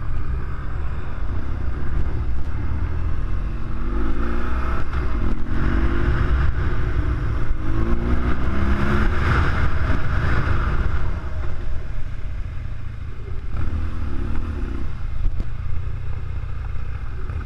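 BMW R1200GS Adventure's boxer-twin engine accelerating, its pitch rising several times with drops between gear changes, over a steady low rumble of engine and wind.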